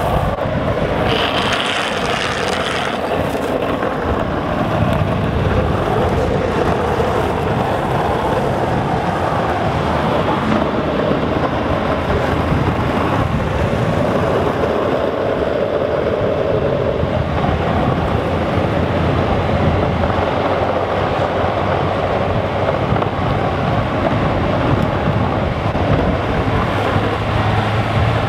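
Wind rushing over the microphone with steady road noise during a fast downhill longboard run. About a second in, a hiss lasting about two seconds comes as the rider slides the board's wheels across the asphalt.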